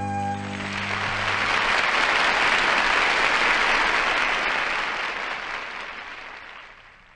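Audience applause, starting over the last held chord of the accompaniment as it dies away in the first second or so. It swells to its loudest about three seconds in and then fades out near the end.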